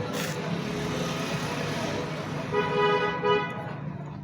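A vehicle horn gives two short toots about two and a half seconds in, over a steady low hum.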